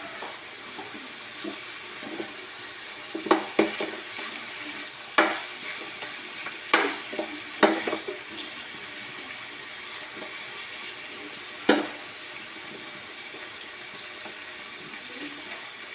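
Pork cooking in a pot with a steady hiss, while a metal utensil knocks sharply against the pot about six times between about three and twelve seconds in.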